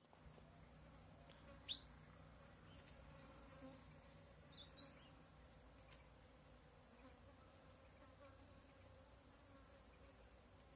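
Faint, steady buzzing of a flying insect, with one sharp click just under two seconds in and two short high chirps about five seconds in.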